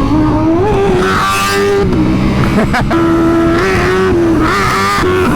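Motorcycle engines running at speed during a ride, one engine tone dominant and steady, rising about a second in, dropping and rising again around the middle, with wind rushing over the microphone.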